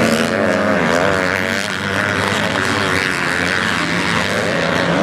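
Motocross bikes racing on a dirt track, their engines revving up and down as the riders work the throttle, the pitch rising and falling continuously.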